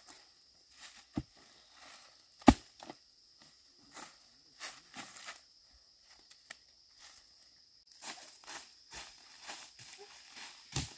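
Two sharp chopping strikes of a hoe into the soil, the second louder, then dry bamboo leaves rustling and crackling as dug bamboo shoots are handled. Near the end come footsteps on dry leaf litter.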